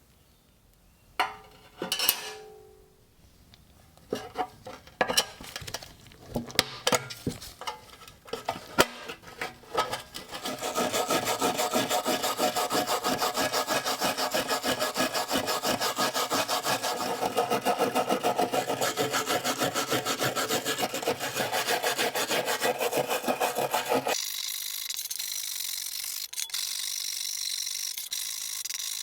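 Scattered taps and scrapes of tools on a small workpiece. From about ten seconds in, a hand tool is worked in rapid, even back-and-forth strokes with a rasping sound. The strokes stop a few seconds before the end, leaving a fainter high hiss.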